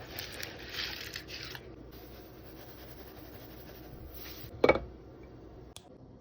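Rustling and scraping handling noises, then a single sharp knock about four and a half seconds in and a faint click about a second later.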